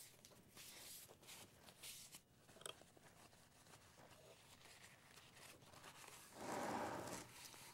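Dry paper towel rustling and rubbing faintly as it wipes a microscope's housing dry of leftover water, with a louder rub lasting about a second near the end.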